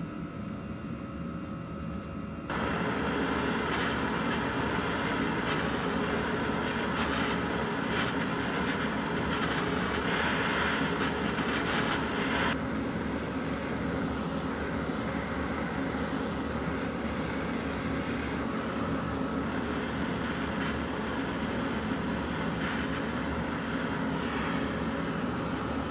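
A steady mechanical whirring noise that jumps louder about two and a half seconds in and eases slightly about ten seconds later.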